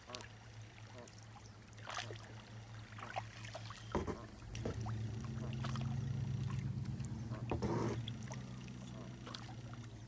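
Kayak on open water: scattered small splashes and drips of water, as from a paddle, over a steady low hum that swells louder from about four seconds in and eases off near the end.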